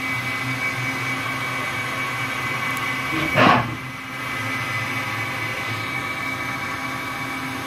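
Brother TC-324N CNC drilling and tapping center running a machining program: a steady hum with a high whine. A brief louder whoosh comes about three and a half seconds in.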